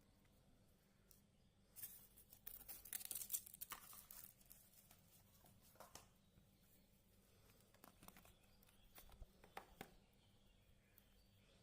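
Faint handling of packaging during an unboxing: a burst of rustling and crinkling about two seconds in, then a few scattered light clicks.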